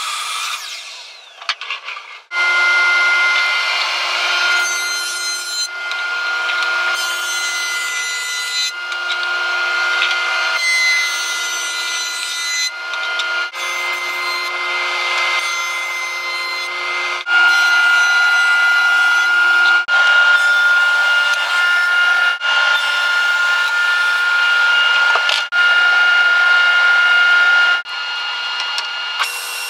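Woodworking machines running and cutting maple boards in a series of short clips: a sliding compound miter saw, a jointer and a table saw. Each has a steady high motor whine over the noise of the cut, and the sound changes abruptly between clips.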